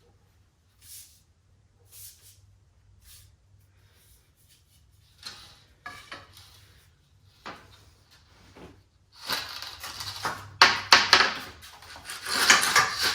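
A piece of wood rolled and rubbed over a length of air-line tubing on a concrete floor, scraping in short strokes. It starts with a few faint rustles and grows into dense, loud scraping over the last few seconds.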